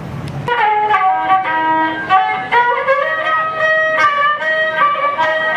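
Instrumental background music with a melody of held notes, starting about half a second in after a brief moment of open-air noise.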